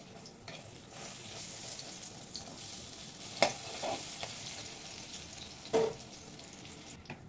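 Batter-coated agati (bakful) flower fritters sizzling in hot oil in a karai, with a metal spatula striking and scraping the pan twice, about halfway through and near the end.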